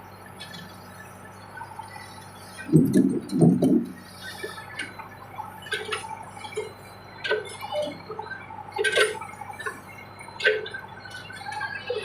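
Backhoe work: a faint steady engine hum under a string of short metallic clinks and knocks, with two heavier thuds about three seconds in.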